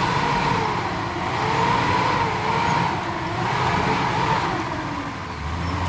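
4x4 off-road vehicle's engine running steadily while driving a rough trail, its pitch wavering slightly up and down.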